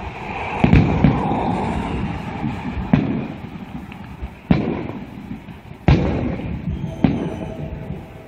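Aerial fireworks shells bursting: about six sharp bangs at irregular gaps, each followed by a low rumbling echo. The first two come close together about a second in, and the loudest is near the six-second mark.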